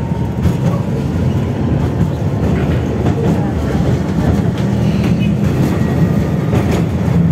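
Tatra T3E tram running along the track, heard from on board: a steady rumble of wheels on rails, with a few clicks as the wheels pass over rail joints.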